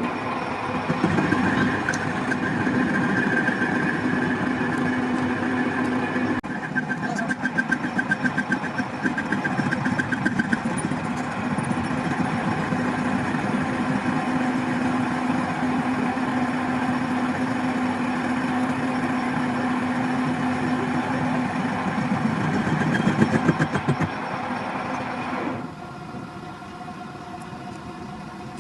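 A machine running steadily, a whine over a lower hum, which stops suddenly near the end.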